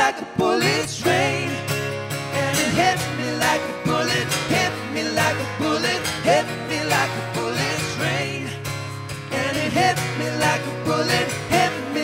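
A live pop-rock band playing: strummed acoustic guitar and drums, with wordless vocals over them.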